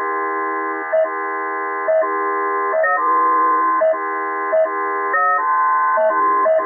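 Synthetic tone soundtrack of a Moving MNIST digit sequence: a steady chord of electronic tones, broken by a short click about once a second as the digit bounces. The mix of pitches shifts about three seconds in and again after five seconds.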